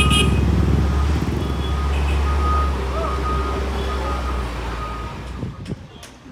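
Heavy diesel earth-moving machinery running with a low engine rumble while its reversing alarm beeps repeatedly. The engine fades away about five seconds in.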